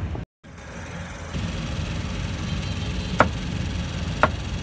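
Busy market-street noise with a steady low engine rumble, cut off for a moment just after the start. Two sharp knocks ring out about three and four seconds in.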